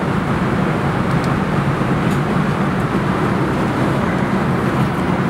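Steady low cabin noise of an airliner in flight: the constant rumble of engines and rushing air inside the passenger cabin.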